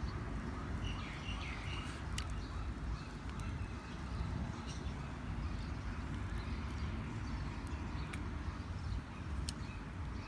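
A few faint bird chirps about a second in, over a steady low rumble of outdoor background, with scattered light clicks.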